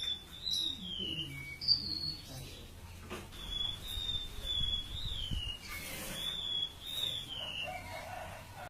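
A small songbird, the kind sold as 'siur-siur laut', singing thin, high whistled phrases that waver and slide downward. The phrases are repeated again and again.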